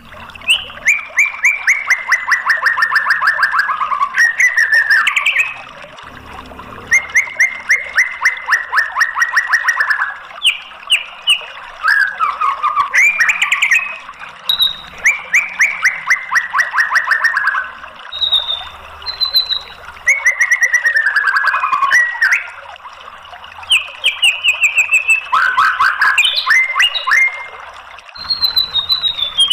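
White-rumped shama singing in long, loud phrases: rapid rattling trills of repeated notes that slide down in pitch, each lasting two to three seconds, broken by short high whistles and sharp chips, with brief pauses between phrases.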